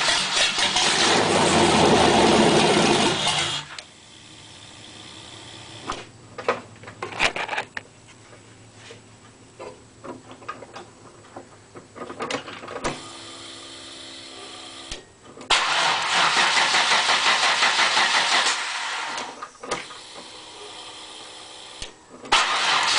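LT1 350 V8 engine running, then cutting out about four seconds in; after a quieter stretch with scattered clicks it fires up again, sags, and picks up once more near the end. The engine dying and restarting is the effect of a vacuum leak after the MAF sensor.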